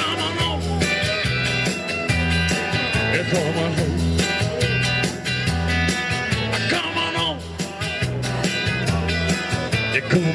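Live rock band playing an instrumental passage: guitar over bass and a steady drum beat.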